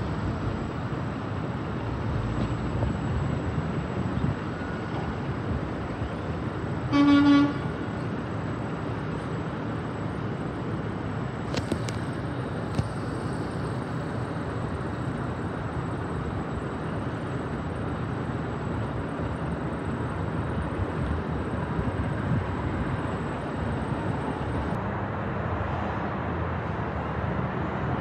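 Roll-off garbage truck's diesel engine running as it pulls out of the yard, with one short horn toot about seven seconds in.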